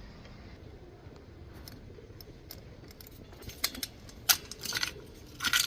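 A bunch of keys jangling: light metallic clicks and jingles, sparse at first and busier in the second half.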